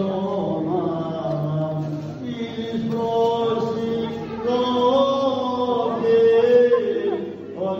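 Byzantine chant: several voices sing a slow hymn melody in long held notes.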